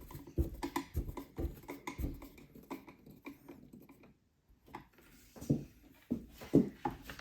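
Irregular light knocks and clicks from handling the drawers of an IKEA Kullen chest of drawers. There is a brief pause around the middle, then a few louder knocks.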